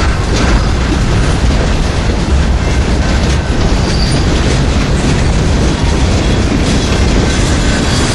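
Freight train of tank cars and boxcars rolling past, a steady loud rumble of steel wheels on rail.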